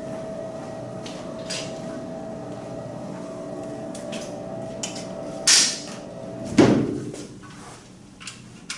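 Motorized projection screen rolling up, its motor giving a steady hum that stops about six and a half seconds in with a knock as the screen reaches the top. A short hiss comes just before the knock.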